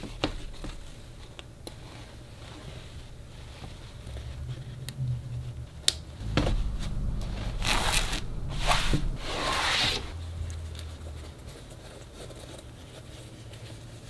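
Hands handling and smoothing a cloth tote bag flat: fabric rustling and rubbing, with a single sharp tap about six seconds in and louder rustling for a couple of seconds after it.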